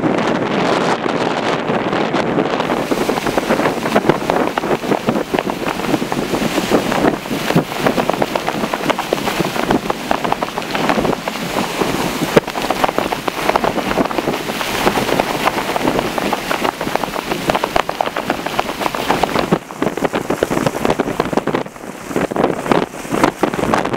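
Strong gusting wind buffeting the microphone, with a dense crackle of wind-driven snow. It eases briefly near the end.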